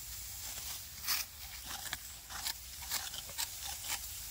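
Dry, ripe rice stalks rustling and crackling in irregular short strokes as a bunch of them is gripped and worked by hand.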